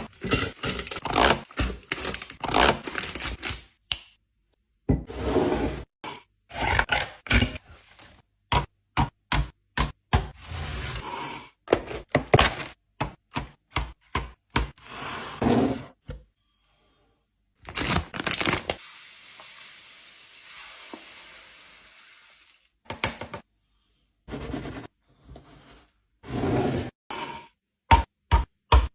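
Drink containers and packaged sweets being handled and set down on fridge shelves: a run of knocks, clicks and scrapes in short bursts with abrupt silent gaps, and a few seconds of steady hiss about two-thirds of the way through.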